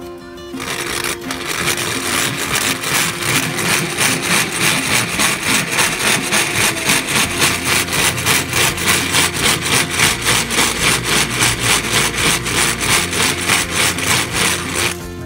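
Electric countertop blender crushing ice for a flavoured ice drink. It starts about a second in, runs loudly with an even pulsing about four times a second, and stops near the end.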